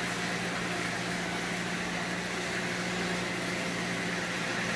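Cornmeal-dredged okra frying in a pot of hot oil: a steady sizzling hiss, over a constant low hum.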